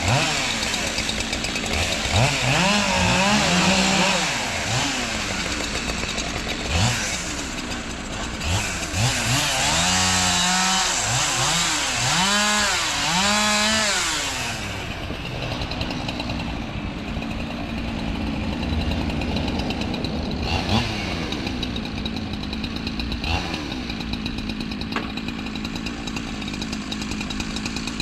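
Gas chainsaw cutting up wood, its engine revving up and dropping back again and again through the first half, then running more steadily.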